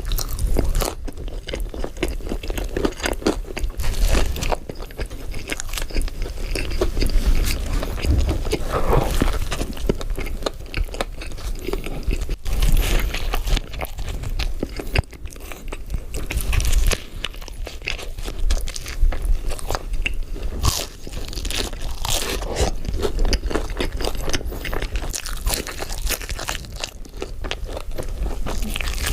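Close-miked eating of fast food: crunchy bites and chewing, many irregular crackly crunches one after another.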